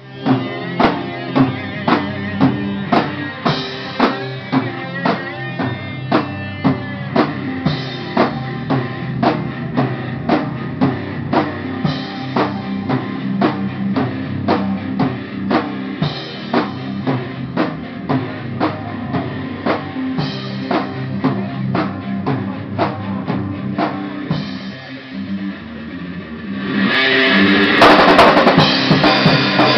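Live rock band playing an instrumental interlude: a drum kit keeps a steady beat of about two hits a second under electric guitar. Near the end the band drops back for a moment, then comes in louder and denser.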